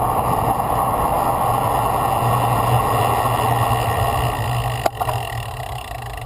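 Wind rushing over an action camera's microphone, with road-bike tyre noise, as the bike descends, fading steadily as it slows into a junction. A single short click about five seconds in.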